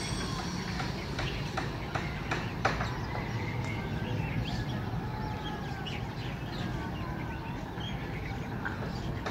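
Birds chirping and calling, with scattered sharp clicks, over a steady low rumble.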